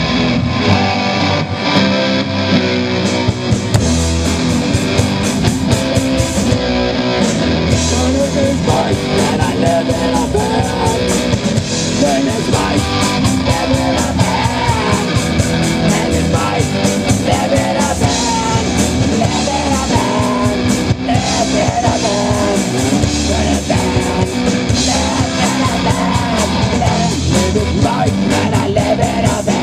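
Live amplified rock band playing a song: electric guitars, bass guitar and a drum kit keeping a steady beat, with a singer singing into a handheld microphone.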